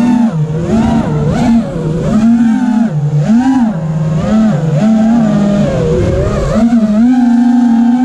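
Armattan Rooster FPV quadcopter's brushless motors whining, the pitch repeatedly rising and falling with throttle as it is flown, with a sharp climb in pitch near the end.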